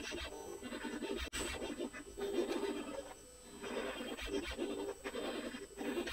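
Dobot Magician robot arm's stepper motors whirring in short, changing moves as it writes letters, with the pen scratching across the paper; a brief lull about three seconds in.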